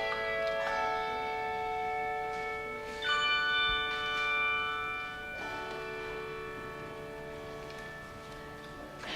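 Church organ playing slow, held chords, changing chord three times.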